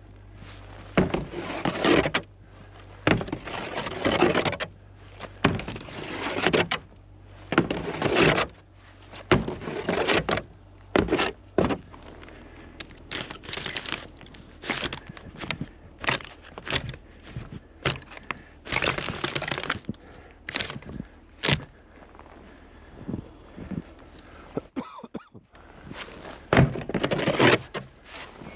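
An axe chipping and scraping away at ice, with many irregular hard strikes and scrapes and a short pause near the end.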